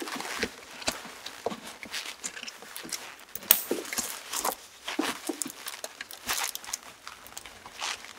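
Fabric seat-back car organizer being handled and fitted to the back of a rear seat: irregular rustling of the cloth with scattered light clicks and knocks as its straps are worked into place, the sharpest about three and a half seconds in.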